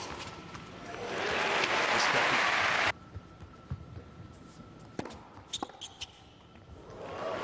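Crowd applauding after a tennis point, cut off suddenly about three seconds in. Then a few sharp strikes of a tennis ball on racket strings in a short rally, and crowd noise rises again near the end.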